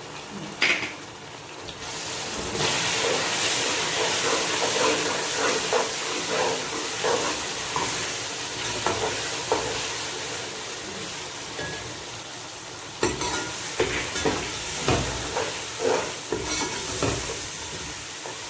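Sliced onions with ginger and garlic paste sizzling in hot oil in a steel pot. A metal ladle stirs them, scraping and knocking against the pot, most often in the later seconds. The sizzle grows louder about two seconds in.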